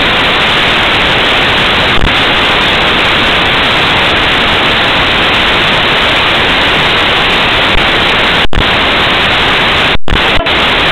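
Loud, steady static hiss, an even noise with no voices heard through it. Near the end it cuts out briefly to silence a few times.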